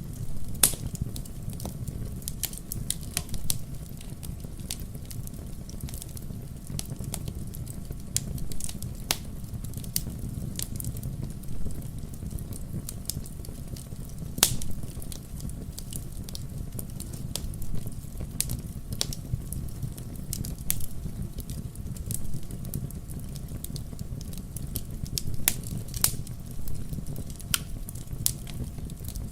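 Wood logs burning in a fireplace, crackling with frequent irregular sharp pops over a steady low sound of the fire.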